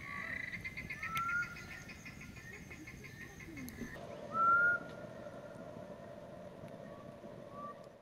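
Frogs calling at night. A rapid trill of clicking notes runs for the first two seconds or so, with short rising calls about a second in and, loudest, about four and a half seconds in.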